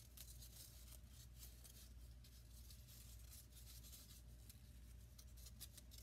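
Near silence: faint rustling and small clicks of thin paper strips being handled and pressed together, over a low steady hum.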